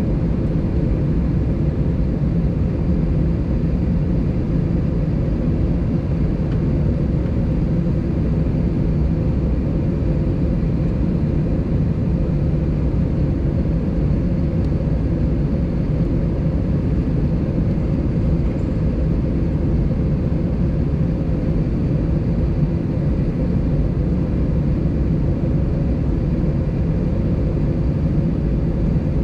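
Airbus A320 cabin noise while the aircraft holds with its engines at idle, heard inside the cabin by the wing: a steady low drone with a constant hum.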